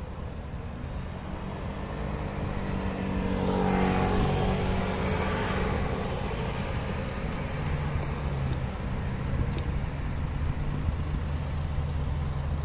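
A lorry drives past close by, its engine and tyres swelling to a peak about four seconds in and fading, its engine note dropping in pitch as it goes by. Under it, a motorcycle engine idles steadily.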